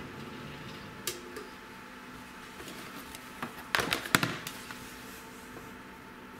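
Room tone with a faint steady hum, a single sharp click about a second in, and a brief cluster of clicks and rustling around four seconds in: handling noise as the light is shaded.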